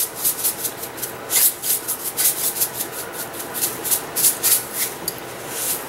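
Wooden spoon stirring and folding thick mashed potatoes in a stainless steel pot: an uneven run of rubbing, scraping strokes, about three a second, that eases off near the end.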